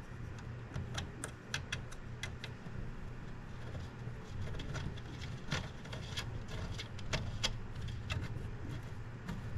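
Scattered light clicks and ticks of a screwdriver working small screws in the 3D printer's metal frame, over a low steady hum.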